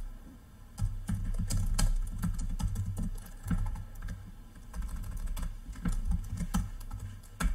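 Typing on a computer keyboard: irregular runs of keystroke clicks, over a steady low hum.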